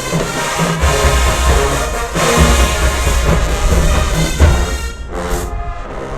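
Marching band playing loudly: massed brass over heavy low drum beats. The full sound thins out about five seconds in.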